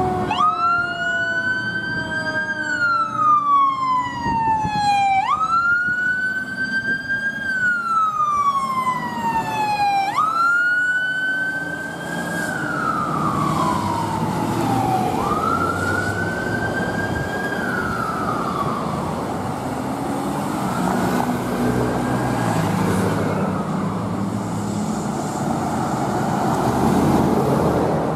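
Fire truck siren wailing, each cycle rising quickly and falling slowly, about every five seconds, growing fainter over the first twenty seconds as the truck drives away. Road and traffic noise runs underneath and is all that remains near the end.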